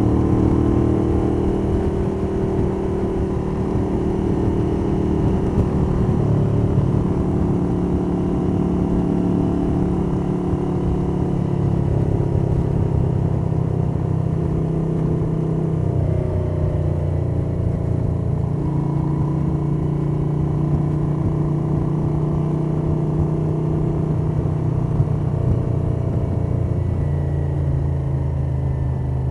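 1982 Moto Guzzi 850 Le Mans III's air-cooled V-twin, on Lafranconi Riservato Competizioni exhausts, running under way, its pitch rising and falling a few times. It is heard through a cotton cloth from the rider's jacket pocket, with wind noise and valvetrain sound.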